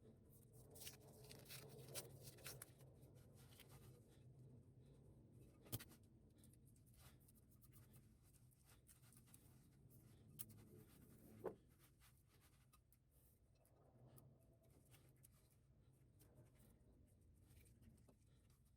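Near silence: faint scratching, with a few light taps about six, ten and eleven and a half seconds in.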